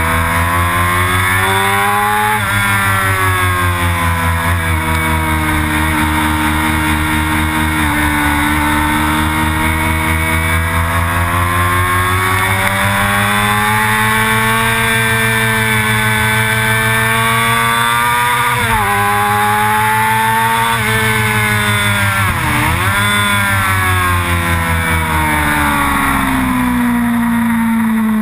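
Sport motorcycle engine at track speed, its pitch climbing and falling as the rider works through the gears, with a sharp drop about two-thirds of the way through and a deeper dip and climb soon after. A steady rushing noise runs under it.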